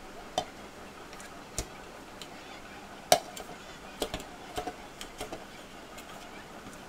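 Scattered clinks and knocks on a steel bowl as dough is kneaded by hand in it, irregular and a few a second at most, the loudest a sharp knock about three seconds in.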